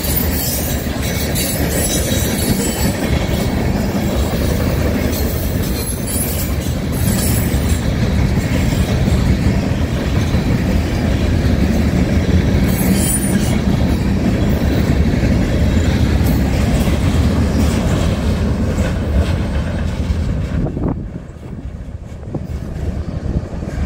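CSX freight train of covered hopper cars passing close by: a steady rumble and clatter of wheels on rail, with brief high squeals now and then. The noise drops off sharply near the end as the last car clears.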